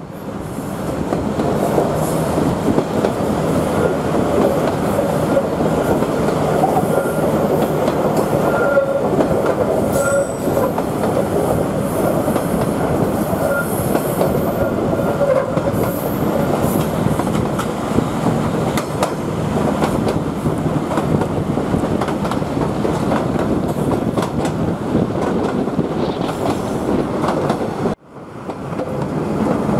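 Queensland Rail 2000 class diesel rail motor running over the track: steady wheel-on-rail rumble and clatter. About eight to eleven seconds in come a few brief, faint squeals from the wheels on the tight curves.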